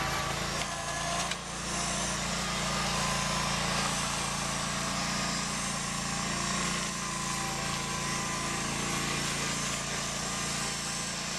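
A John Deere garden tractor's engine runs steadily as the tractor drives with its front-end loader, under a steady hiss.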